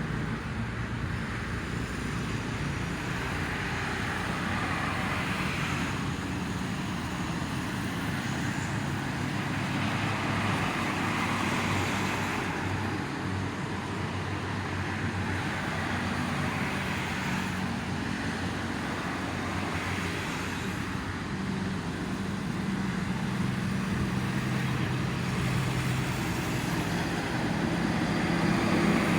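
Steady toll-road traffic: a constant rush of passing vehicles with a low engine hum, swelling and fading every few seconds as cars and trucks go by.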